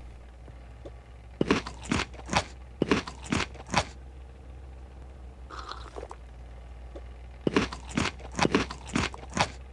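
Two runs of sharp crunches, about seven in each, a few seconds apart, over a low steady hum.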